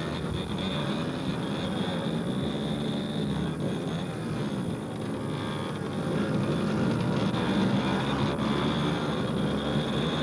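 Several small motorbike engines buzzing and revving unevenly, growing louder about six seconds in.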